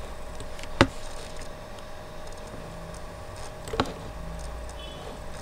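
Two sharp computer mouse clicks, about three seconds apart, the first the louder, over a steady electrical hum.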